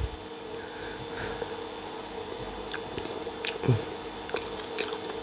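Quiet chewing of macaroni with meat, with a few soft mouth smacks and a brief low murmur a little past the middle, over a faint steady hum.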